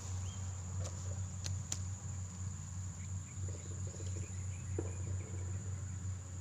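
Insects calling in one steady, unbroken high-pitched drone, over a low steady rumble, with a few sharp clicks in the first two seconds.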